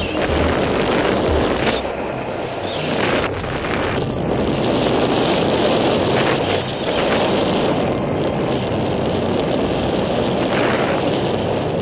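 Wind rushing over the microphone of a camera carried in flight, an uneven roar that swells and eases in gusts.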